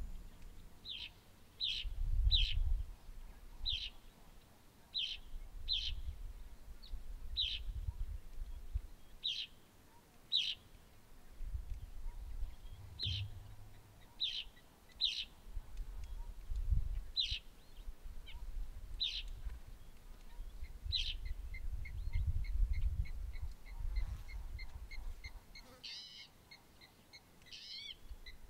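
Birds calling: short, sharp chirps repeated irregularly about once a second. In the last third a fast, even trill of pulses takes over, with a few sweeping calls. A low rumble comes and goes underneath.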